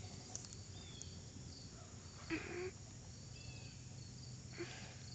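Faint outdoor ambience with a steady, high insect drone, typical of crickets. A brief short sound comes about two and a half seconds in.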